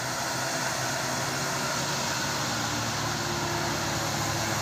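Diesel engine of a tour bus labouring up a steep hill, a steady low drone that grows gradually louder as the bus approaches.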